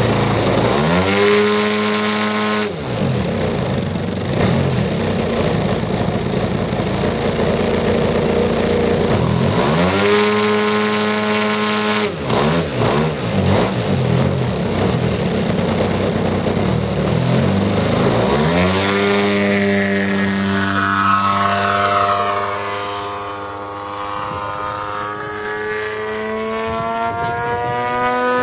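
Engine and propeller of a 33%-scale Krill Su-29 aerobatic RC model plane running. It is revved up briefly twice on the ground, then opened up about 18 seconds in for the takeoff, its pitch rising and then wavering as the plane flies, fading a little before growing louder again near the end.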